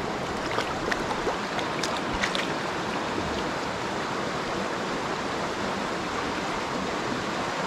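Shallow mountain stream running over stones: a steady rush of water. A few light clicks come about one to two seconds in.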